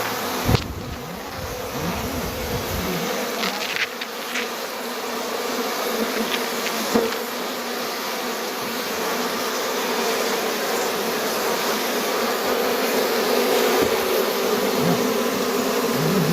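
Swarm of honeybees buzzing steadily around their hive, a dense many-winged hum, with a few short knocks about half a second in and again around 4 and 7 seconds in.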